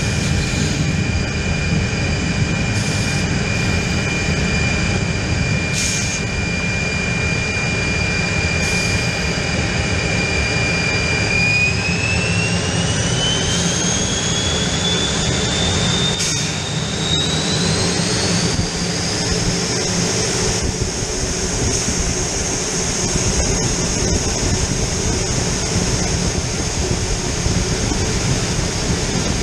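Motorlet M-701 turbojet of an L-29 Delfín heard from inside the cockpit: a steady high whine over a low rumble, then about eleven seconds in the whine climbs in pitch in two steps as the engine spools up, settling higher for the rest of the time.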